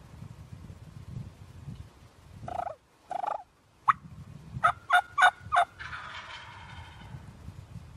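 Wild turkeys calling close by: two short notes, then four quick sharp notes, followed by a gobble that trails off about six seconds in.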